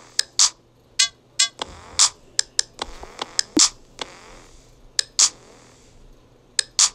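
A series of sharp clicks and snaps at uneven intervals, about two a second, some with a brief ringing ping, over a faint low hum.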